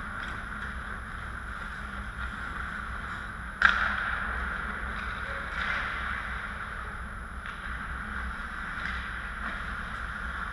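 Ice hockey rink sound during play: steady rink noise with skating and a low hum, and a single sharp crack from the play on the ice about three and a half seconds in, the loudest sound, with a smaller knock a couple of seconds later.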